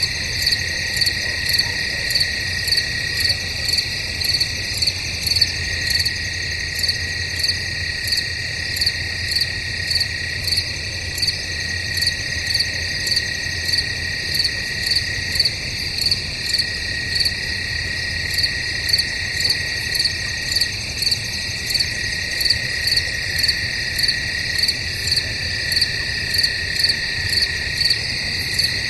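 Night chorus of crickets in woods: a steady unbroken trill underneath, with a louder chirping pulse repeating evenly about one and a half times a second.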